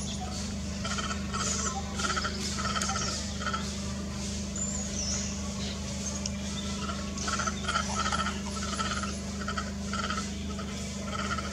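Outdoor animal sounds: a short call repeating about twice a second, with a brief higher chirp about five seconds in, over a steady low hum.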